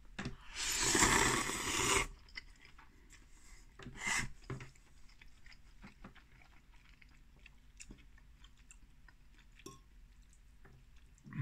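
A person slurping a mouthful of instant ramen noodles, a loud slurp about half a second in lasting about a second and a half, then quiet chewing with a short louder noise about four seconds in.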